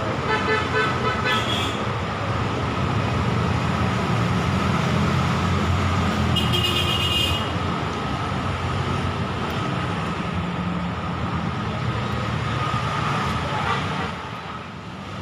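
Steady road traffic rumble with two short vehicle horn toots, one at the start and another about six seconds in.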